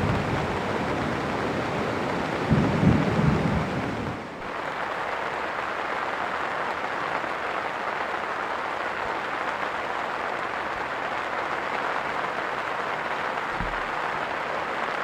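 Heavy rain falling as a steady hiss. Low rumbling gusts come through in the first few seconds, the sound changes abruptly about four seconds in to an even rain, and there is a brief low thump near the end.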